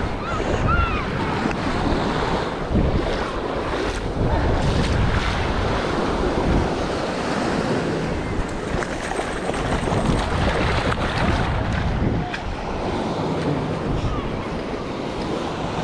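Ocean surf washing onto a sandy beach, with wind buffeting the microphone in a steady rumble.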